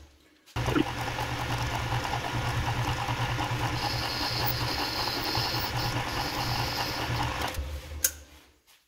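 Metal lathe switched on about half a second in and running steadily with a low hum, while a boring bar cuts an aluminium bore; a thin high whine comes in over the middle couple of seconds. Near the end the lathe is switched off with a sharp click and runs down.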